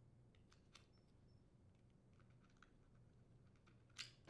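Near silence broken by a few faint small clicks and one sharper click about four seconds in, from needle-nose pliers and the plastic throttle housing being handled while the switch wires are pulled free and disconnected.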